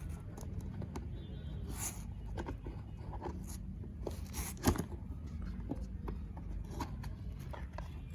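A cardboard puzzle box being opened and handled: scattered scrapes, rustles and light taps of cardboard, with one sharper knock just past the middle.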